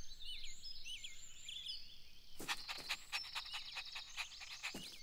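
Soft cartoon garden ambience: small birds chirping for the first couple of seconds, then a cartoon puppy panting in quick short breaths, several a second.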